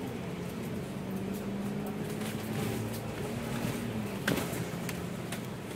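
Double-decker bus engine and drivetrain running under way, heard from the upper deck as a steady low drone that dips slightly in pitch about four seconds in. A single sharp knock or rattle follows just after.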